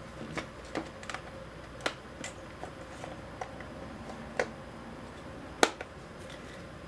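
Small plastic clicks and taps as the rear plastic cover of a Canon Rebel T6 camera body is pressed and snapped into place by hand. The clicks come irregularly, a dozen or so, with the sharpest snap a little past halfway.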